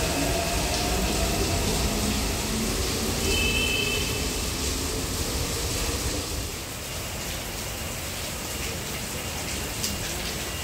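Taipei Metro train pulling away from the platform, its motor whine and wheel rumble fading over the first few seconds into a steady background hum. A brief high tone sounds about three and a half seconds in.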